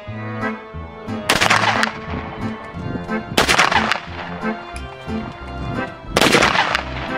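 Three shots from an SKS semi-automatic rifle firing 7.62x39 mm rounds, two to three seconds apart, each trailing off over about half a second, with background music playing throughout.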